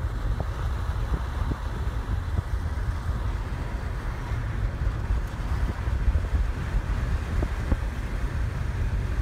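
Wind buffeting the microphone: a heavy low rumble that rises and falls in uneven gusts.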